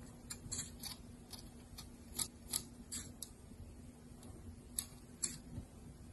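Faint, irregular light clicks and crinkles from aluminium foil cradling a fondant flower, handled as a brush dabs powder colour onto the petals, with a faint steady low hum underneath.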